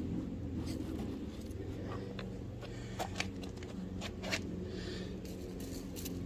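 Steel garden fork rocked back and forth in dry leaf mulch: rustling and scraping of tines through leaves and soil, with a few sharp clicks and ticks about halfway through. A steady low hum sits underneath.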